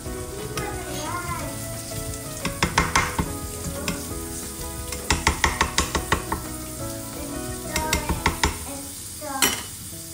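Diced carrot and spam sizzling in a stainless steel pan, with a spatula scraping and clacking against the pan in three runs of quick strokes and a single knock near the end.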